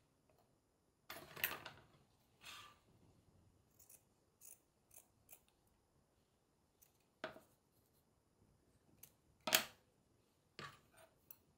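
Scissors cutting a piece of black fibre mat: a series of separate short snips and handling rustles, with a few sharper strokes, the loudest about two-thirds of the way through.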